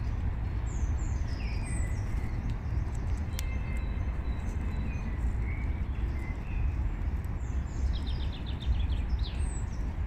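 Songbirds singing: short whistled notes that sweep up and down, and a fast trill near the end, over a constant low rumble.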